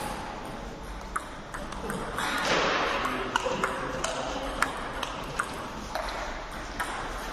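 Table tennis rally: the plastic ball clicking sharply off the bats and the table, about a dozen hits at an irregular, quick pace.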